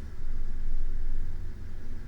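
A person breathing slowly in sleep, very close to a binaural microphone: one breath swells in just after the start and eases off near the end, as a soft low rumble of air.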